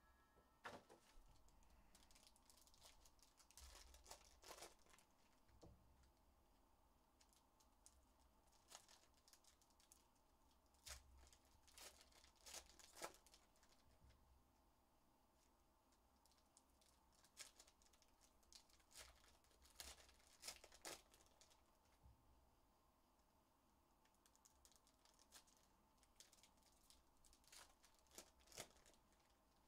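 Faint tearing and crinkling of foil Panini Prizm trading-card pack wrappers being ripped open, with the cards inside being handled and slid against each other. The sounds come as short, scattered rips and clicks in clusters.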